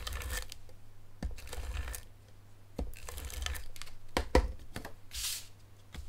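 Cardstock being handled on a tabletop: rustling and sliding of paper, with a few light taps as it is pressed down and set in place, the loudest tap about four seconds in and a short papery swish near the end.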